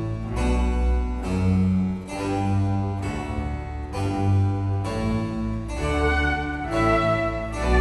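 Classical-style background music led by a harpsichord, its chords changing about once a second.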